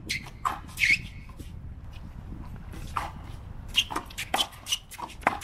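Racquetball rally: sharp pops and smacks of a racquetball struck by racquets and hitting the concrete wall and court, a few in the first second and a quicker run in the last two and a half seconds, over a steady low rumble.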